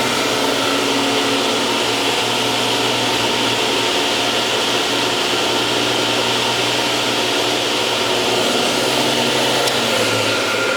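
Delta Rockwell 14-inch table saw with a 7.5 horsepower belt-drive motor running at speed with no load: a steady whir with a constant hum. It runs quietly on new belts.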